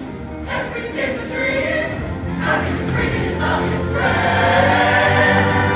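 Show choir singing in full harmony with a live backing band. The sound swells louder and fuller about four seconds in.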